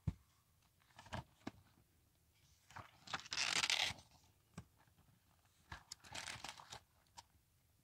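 Paper pages of a spiral-bound notebook being turned and handled: a loud crisp rustle about three seconds in lasting about a second, another near six seconds in, with light taps and clicks of handling between.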